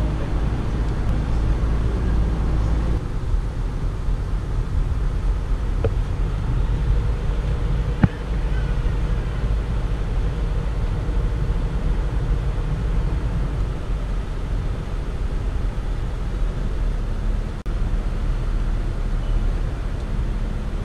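Tour boat's engine running steadily, a low drone heard from on board as the boat cruises along the river. A single sharp click about eight seconds in.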